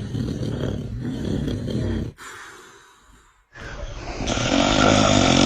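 Man snoring: a long rattling snore, then a break of about a second and a half, then a louder, breathier snore near the end.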